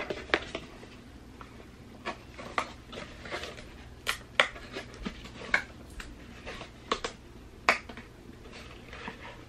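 Small paperboard boxes handled and folded by hand: irregular sharp clicks and snaps of the card, with soft rustling between them.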